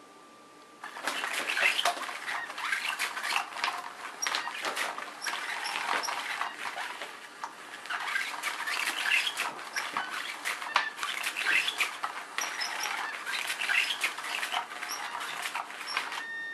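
Crinkly nylon rustling and scratching in irregular bursts from a Cat's Meow cat toy, its hidden wand sweeping under the fabric skirt while a cat paws at it. The rustling starts about a second in.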